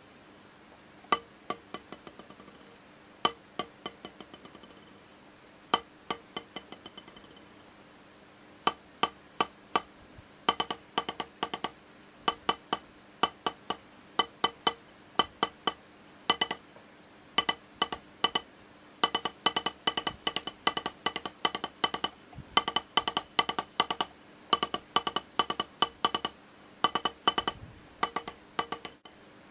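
Wooden drumstick striking a rubber practice pad. The first few strokes are let go to bounce freely, each dying away in a quick run of smaller rebounds, and then a steady series of strokes grows faster and denser.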